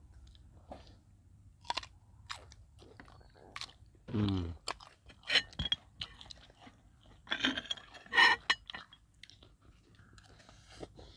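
Close-up eating sounds: chewing with a string of separate crunchy bites, a few of them louder, as raw cucumber dipped in prahok is eaten.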